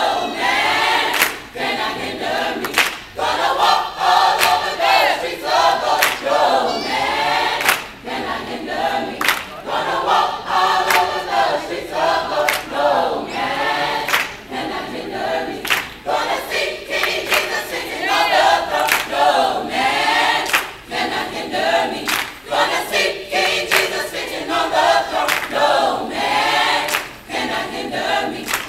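A mixed choir of men and women singing together, with sharp handclaps keeping a steady beat about once a second.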